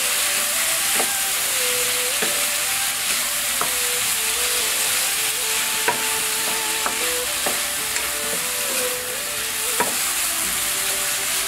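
Rice noodles, bok choy and chicken sizzling in a nonstick wok, the pan moistened with a little water so it won't burn, while a wooden spatula stirs them and taps against the pan about once a second.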